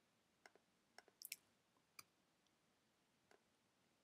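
Faint clicks of a computer mouse and keyboard, about five spread over a few seconds, two close together about a second in, against near silence.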